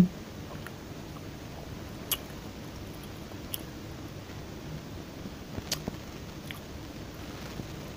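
Quiet close-up chewing of deep-fried chicken, with three sharp little crunches or clicks spread through it over a steady low hiss.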